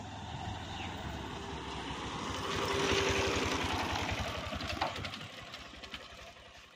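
Hero Xtreme 160R single-cylinder motorcycle passing at low speed, its engine loudest about three seconds in and then fading as it rides away. A few sharp knocks come as it crosses a wooden plank bridge.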